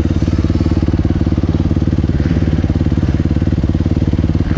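250cc four-stroke single-cylinder dirt bike engine idling steadily.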